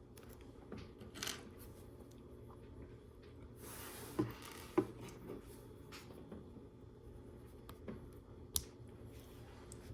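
Light handling of LEGO Technic plastic pieces: a brief rustle about four seconds in and a few sharp small clicks, over quiet room tone.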